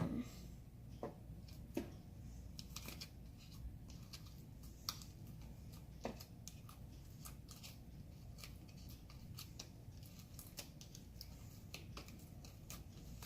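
Melted slime being handled by hand: faint, scattered small sticky clicks and pops, a few a second, over a low room hum.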